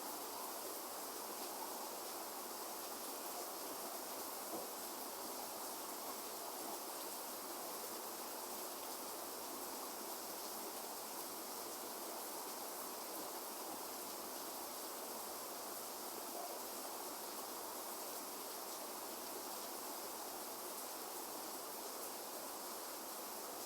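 Steady rain falling: an even hiss with no thunder claps or rumbles.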